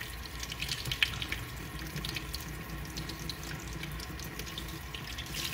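Kitchen faucet running in a steady stream over hands rinsing a raw shrimp in the sink, with small splashes and drips.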